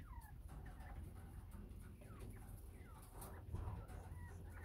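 Northern bobwhite quail giving faint, short chirping calls, several of them falling in pitch, over a low steady rumble.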